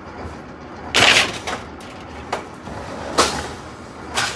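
Sheet of steel clanging and rattling as it is handled and fed into a sheet-metal machine. One loud ringing clang about a second in, then several smaller clanks.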